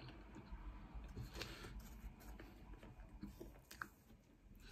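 A person chewing a mouthful of chips with the mouth closed, faint, with scattered soft clicks.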